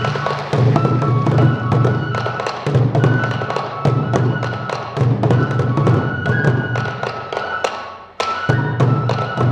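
Sansa odori festival music: a group of taiko drums struck in a fast, driving rhythm under a shinobue bamboo flute melody of held notes. The drumming breaks off briefly just after 8 seconds in, then comes back in.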